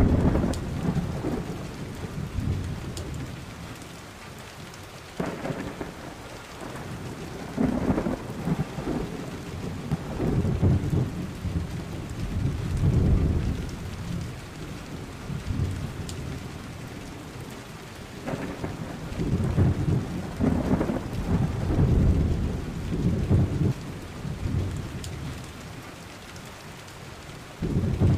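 Thunderstorm: steady rain with several rolls of thunder, low rumbles that swell and fade every few seconds.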